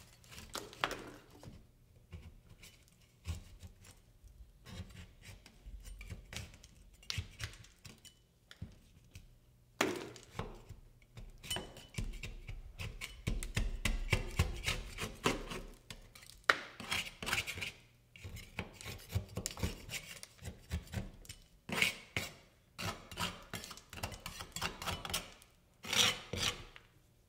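A 1½-inch taping knife scraping and peeling drywall away from a damaged corner bead in irregular rasping strokes, with a few sharp clicks.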